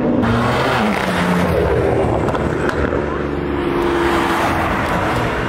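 Car engines running loudly, with a steady mixed drone.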